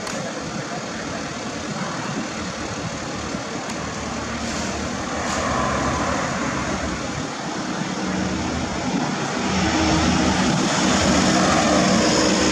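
A vehicle engine running with a steady drone that grows louder and more humming about two-thirds of the way through.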